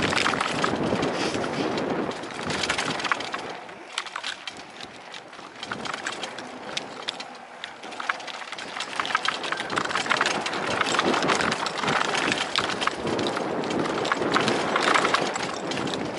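Hardtail fat-tire e-bike rolling down a dirt trail: tyres crunching over dirt and loose stones, with the bike rattling and many small clicks and knocks. It is fuller in the first two seconds and again in the second half, thinner in between.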